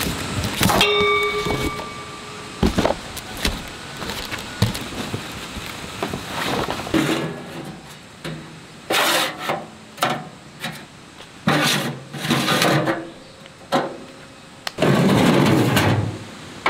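Cardboard box being cut and torn open, then a stainless-steel box stove being handled: metal knocks and scrapes as its panels and door are moved. A metallic clang rings briefly about a second in, and a longer scraping noise comes near the end.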